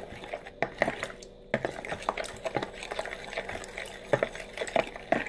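A spoon stirring a thin starch batter in a bowl, with quick repeated clicks and scrapes of the spoon against the bowl and a brief lull about a second in.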